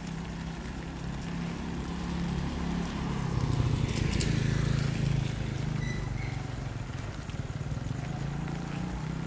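A motor vehicle passing on a wet street: its sound builds, peaks about four seconds in, then fades, over a steady low engine hum.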